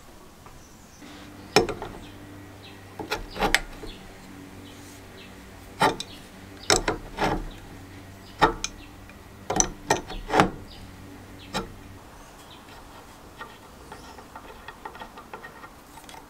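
An adjustable wrench working a rusted square nut loose on a part clamped in a bench vise: a string of sharp metal clicks and knocks, then light ticking and scraping near the end as the loosened nut is turned off by hand. A low steady hum runs underneath until about three quarters of the way through.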